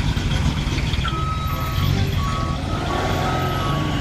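Truck engine running with a low rumble while a reversing alarm gives a repeated two-tone beeping.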